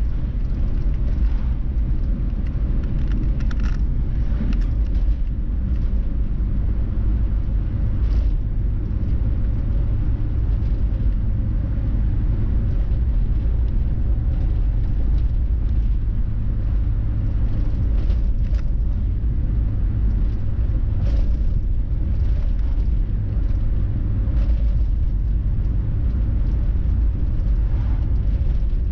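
Car driving along a road: a steady low rumble of engine and tyre noise, with a few faint knocks from the road surface.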